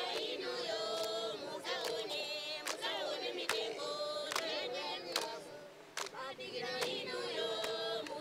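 A group of voices singing together in harmony, several melodic lines moving in parallel, over a sharp percussive beat that falls about once a second.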